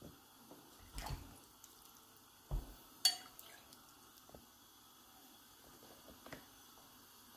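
Faint handling sounds of a hand at work over a plate of fish: two low thumps and a sharp click about three seconds in, then a few small ticks, over quiet room tone.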